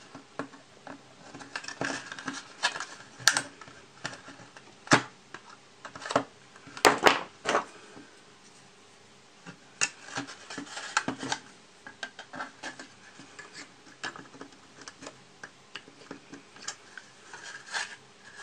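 A small screwdriver prying and scraping at the glued plastic hull of a model kit: irregular clicks, scrapes and small plastic snaps as the stuck parts resist, with a few sharper cracks between about three and eight seconds in.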